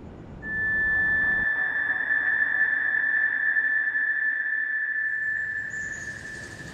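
A steady, high-pitched ringing tone, a film sound-design effect, comes in suddenly under a second in, holds one pitch, and fades away near the end.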